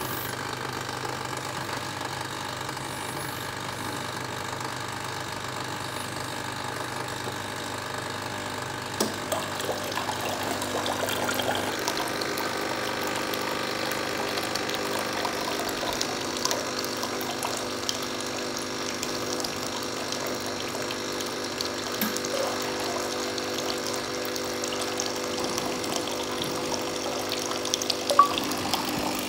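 Cannular Duofiller can filler test-run with water after reassembly: water pours steadily from its two fill tubes into a bucket over a steady hum. A few sharp clicks, the loudest near the end.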